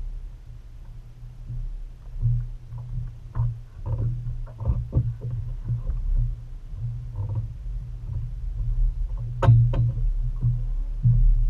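A steady low rumble on a bass boat, with scattered knocks and clunks from the deck as the angler moves about and handles a landing net; a sharp, loud clatter about nine and a half seconds in.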